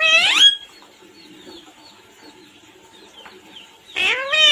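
Pet parrot giving loud, rising calls: one at the start and two more close together about four seconds in, with faint short chirps in between.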